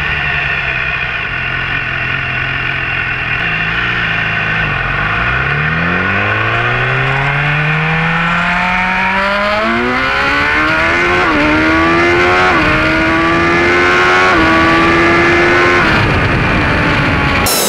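BMW S1000R's inline-four engine with an Akrapovic slip-on exhaust, running at low revs at first, then under full-throttle acceleration: its pitch climbs steadily and steps at each upshift through the gears, with wind rushing as speed builds.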